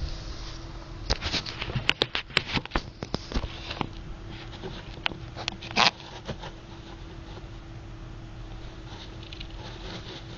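A pet gerbil making quick, irregular scratches and clicks, most of them from about a second in until about six seconds in, then only faint ones, over a steady low hum.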